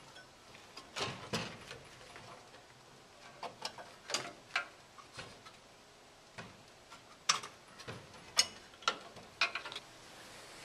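Plastic wiring-harness connectors being unplugged from a snack vending machine's control board: irregular sharp clicks and light rattles of plastic plugs and cable, a dozen or so spread throughout.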